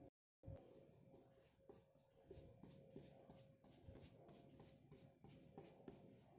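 Faint scratching of a paintbrush dabbing paint onto a plywood board, short quick strokes about three a second.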